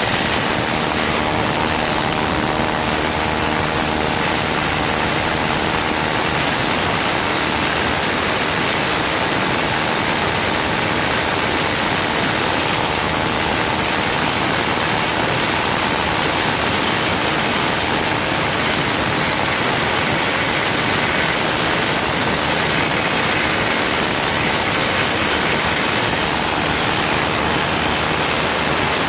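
Harbor Freight pneumatic needle scaler running loudly and steadily without a break, its bundle of steel needles hammering against rusted steel and chipping off the rust scale.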